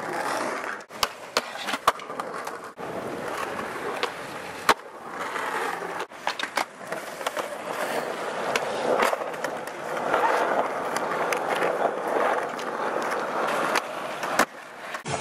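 Skateboard wheels rolling on smooth concrete, a continuous gritty rumble, cut by sharp clacks of boards popping and landing: several in the first few seconds, a couple around the middle and one near the end as a kickflip lands.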